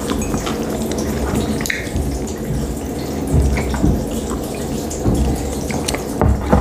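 Close-miked chewing of sushi rolls, with wet mouth clicks, then sips and swallows from a mug about three to four seconds in.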